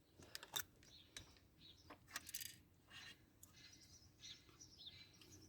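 Near silence with a few faint clicks and taps as a small fan is hung on a metal S hook, and faint high chirps in the background.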